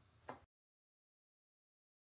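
Near silence: one faint, very short sound about a quarter of a second in, then the sound track goes completely dead.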